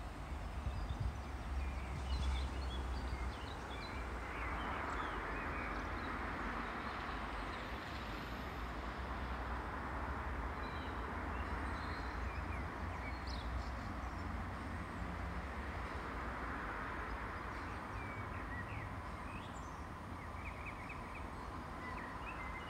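Outdoor ambience: small birds chirping in short scattered calls over a steady low rumble and hiss that swells and fades twice.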